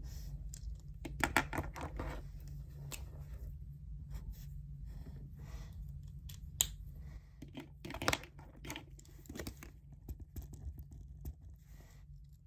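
Paper and pen sounds at a study desk: irregular rustling and scratching with a few sharp clicks, over a steady low hum.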